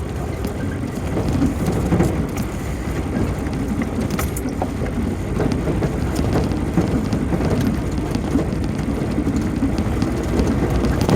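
Vehicle driving on a rough dirt trail, heard from inside: a steady rumble of tyres and engine with scattered clicks and rattles, such as gravel striking the body.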